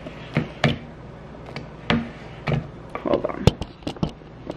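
A silicone spatula stirring thick cream cheese frosting and knocking and scraping against a plastic mixing bowl, with irregular short knocks that come thicker about three seconds in.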